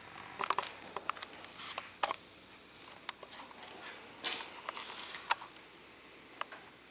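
Irregular light clicks and brief rustles of hands handling chains and small parts during assembly of a motorcycle engine.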